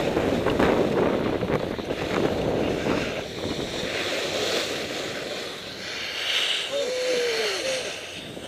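Wind buffeting the camera microphone and skis sliding over packed snow during a downhill run. It dies away about six seconds in as the skier slows, with a faint voice near the end.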